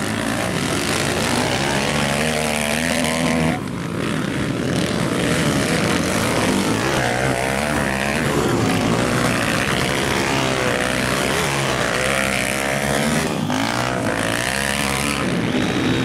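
Motocross dirt bike engines racing on a dirt track, revving up and down through the gears as the bikes ride through a turn and past. The engine pitch keeps rising and falling, with the tones of more than one bike overlapping.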